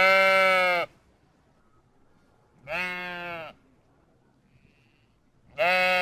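Sheep bleating: three bleats of under a second each, about three seconds apart, the last one near the end.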